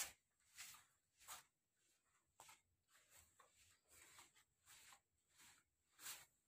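Near silence with faint, regular footsteps, about one every half to three-quarters of a second, of someone walking on a carpeted floor.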